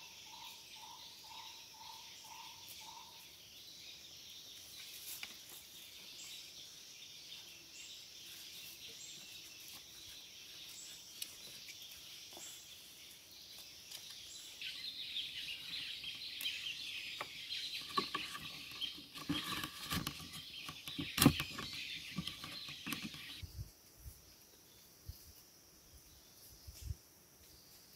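Forest ambience of insects buzzing steadily, with a bird repeating a short note two or three times a second at the start. About two-thirds of the way through, the buzzing grows louder and a run of knocks and rustles from handling bamboo and cord comes, the sharpest knock near the end of it. The buzzing then cuts off suddenly.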